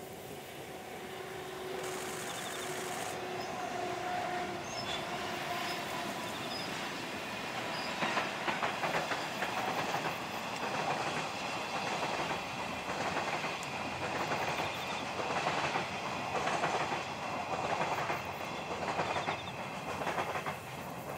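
A JNR ED75 AC electric locomotive hauling a long-rail transport train of flat wagons passing by. A steady tone comes from the locomotive at first, then from about eight seconds in the wagons' wheels run with a regular clickety-clack.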